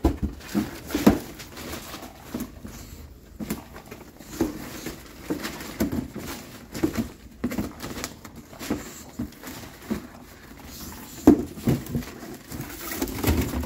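A teething English bulldog puppy chewing and pushing a cardboard egg box around on the floor: irregular cardboard scrapes and knocks with newspaper rustling, and short grunts from the dog.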